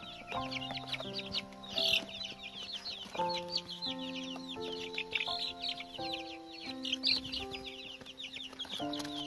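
A box of young chicks peeping nonstop, a dense stream of short, high cheeps that fall in pitch, over soft background music with held notes.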